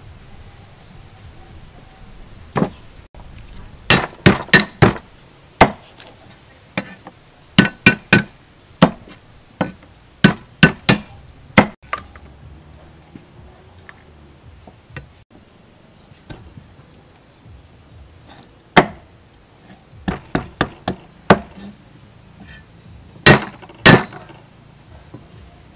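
Metal cleaver chopping lemongrass and a fresh root on a thick wooden chopping board: sharp chops in quick runs of several strokes, some with a brief metallic ring, with pauses between the runs.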